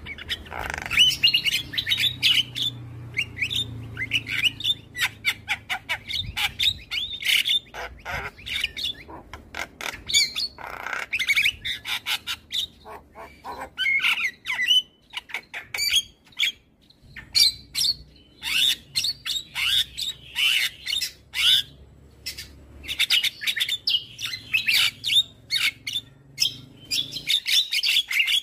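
Javan myna (jalak kebo) singing at full tilt: a fast, unbroken chatter of harsh squawks, sharp clicks and whistled notes, with a brief pause about sixteen seconds in.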